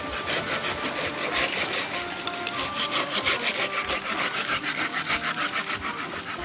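Hand saw cutting through firewood in steady back-and-forth strokes.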